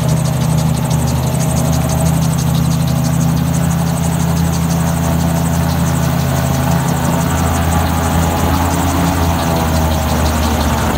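Gyroplane's engine and propeller running steadily, heard from the cockpit as the gyroplane rolls across grass.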